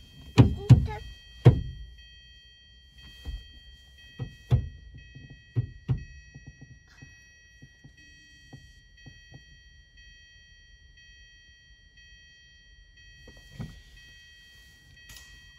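A series of dull thunks and knocks. Three loud ones come close together in the first second and a half, softer ones follow a few seconds in, and one more comes near the end. A faint steady high whine of several tones sits underneath.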